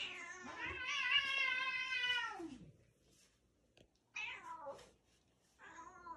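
Domestic cat meowing: one long meow of nearly three seconds that drops in pitch at its end, then two short meows.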